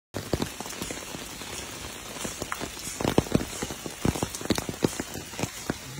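Steady rain falling on a wet paved path and grass, with many close, sharp single drops and splashes standing out from the even patter.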